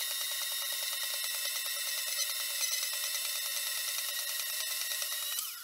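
Vevor portable metal-cutting bandsaw running in its cutting base, its blade cutting through a solid round metal bar. It is a steady high-pitched whine made of many tones, with a fine rapid ticking, and it cuts off abruptly near the end.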